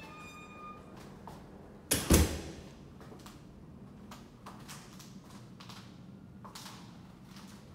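Footsteps on a parquet floor, with a loud double thump about two seconds in, like a door knocking or bumping.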